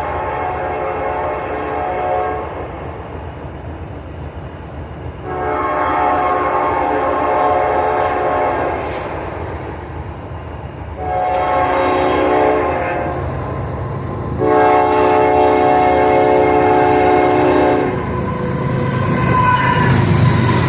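Canadian National locomotive air horn sounding a chord in the grade-crossing pattern: a long blast that ends about two seconds in, another long blast, a short one, then a final long blast. Near the end a low rumble of the train grows louder.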